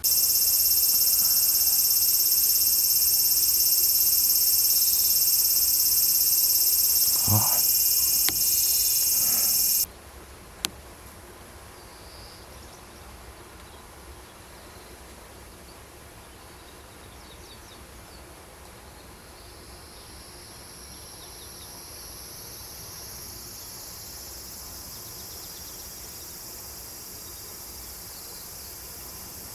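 Loud, dense, high-pitched insect chorus that cuts off abruptly about ten seconds in, leaving a much quieter background; a fainter insect chorus slowly swells again in the last third.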